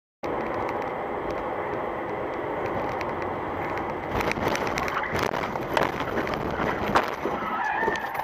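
Steady road and engine noise inside a moving car. From about four seconds in comes a run of knocks and bangs, loudest near seven seconds, as a car crashes ahead and throws up a dust cloud.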